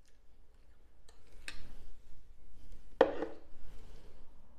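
Close-miked eating sounds: chewing a mouthful of spaghetti with mackerel, with a few short clicks and smacks of the fork and mouth, the loudest about three seconds in.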